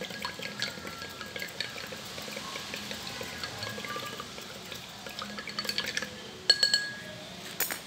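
Wooden skewer stirring salt water in a small glass jar, with light ticks and scrapes against the glass. Near the end the skewer strikes the jar twice, about a second apart, in ringing clinks.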